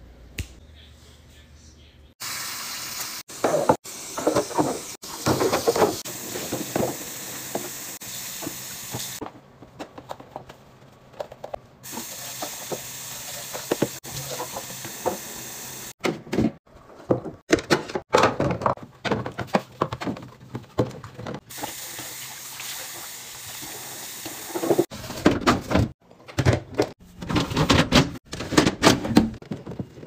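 Running tap water and plastic fridge bins and shelves being handled and knocking together, in short clips with abrupt cuts between them.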